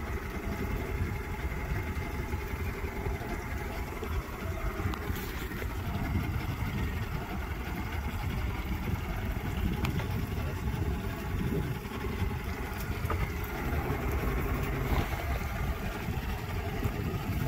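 Small boat's outboard motor idling steadily, a continuous low rumble.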